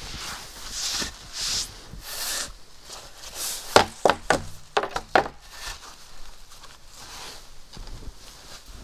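Wide wooden hunting skis being knocked and handled: about six sharp wooden knocks in quick succession near the middle, after a few seconds of clothing and snow rustling.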